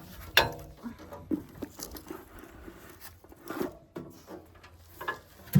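Irregular clicks and knocks of hand tools and loose metal parts being handled while a chipper/shredder is taken apart to clear a blockage. The loudest knock comes right at the end.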